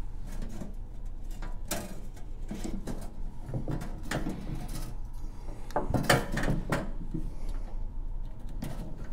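Hands working inside a steel ammo can, fitting snare-drum snare wires against its inside wall: scattered light knocks, clicks and rustles against the metal, loudest about six seconds in.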